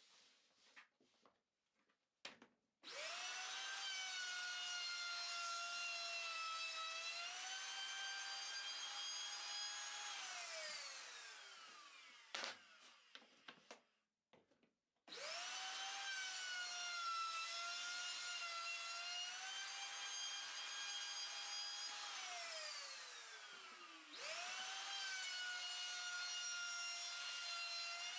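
Bosch hand-held plunge router cutting flutes in a wooden door casing. The motor spins up quickly to a high whine, runs about seven seconds with its pitch dipping slightly under the cut, then is switched off and winds down. This happens twice, and it starts a third time near the end. Short clicks and knocks of the casing being handled come before and between the runs.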